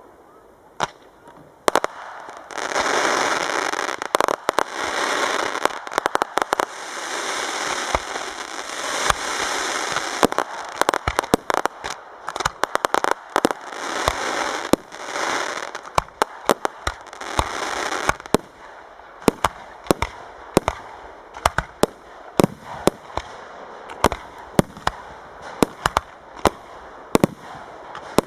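Professional fireworks display: sharp shell bursts over long stretches of dense crackling and hissing, then in the second half a quick string of separate sharp bangs, several a second at times.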